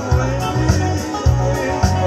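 A man singing while strumming an acoustic guitar, over a steady backing beat with a low pulse a little under twice a second.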